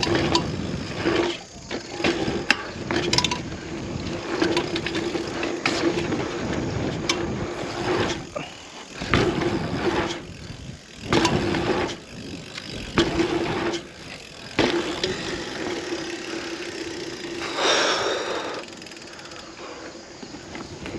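Bicycle ridden over dirt jumps: tyres rolling on packed dirt with wind on the microphone, and sharp clanks and chain slaps over the bumps and landings. A steady rear-hub freewheel buzz comes and goes as the rider coasts.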